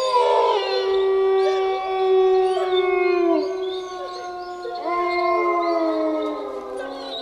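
Several wolves howling together: long, held howls at different pitches overlap. One slides down and ends about three and a half seconds in, another rises in about a second later, and the chorus fades near the end.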